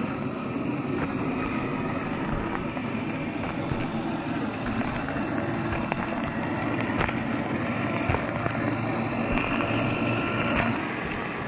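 1/10-scale RC crawler trucks driving over gravel: steady whine from the electric drive motors and gearboxes, with the tyres crunching and clicking on loose stones. The sound changes about a second before the end.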